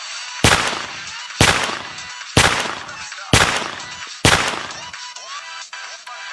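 Five gunshot sound effects about a second apart, each a sharp bang that dies away before the next.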